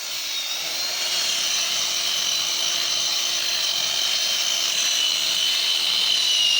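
A large two-stroke chainsaw running at steady high revs, cutting through the trunk of a big tree. Its pitch holds level throughout.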